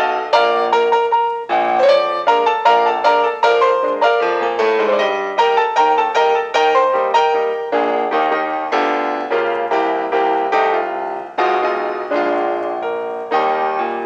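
Solo piano accompaniment playing a quick run of struck notes and chords, with a brief pause about a second and a half in.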